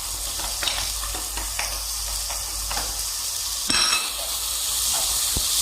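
Chicken frying in oil in a pan with a steady sizzle, a utensil clicking and scraping against the pan as it is stirred. A louder, brief clatter comes a little under two-thirds of the way through.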